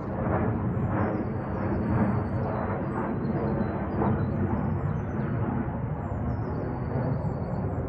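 Airplane flying high overhead: a steady broad rumble that swells a little now and then, with small birds chirping over it.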